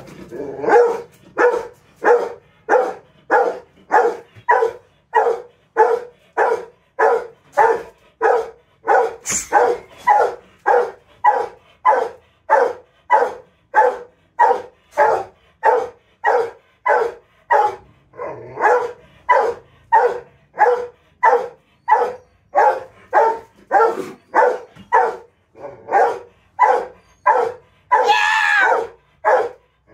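A Rottweiler barking over and over in a steady rhythm, nearly two barks a second, with a longer, higher-pitched cry near the end.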